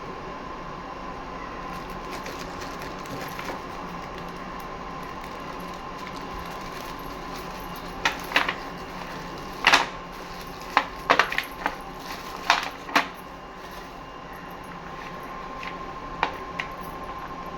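Small hard slate pieces clicking and clinking as they are handled, with a cluster of sharp knocks about halfway through and one more near the end, over a steady faint hum.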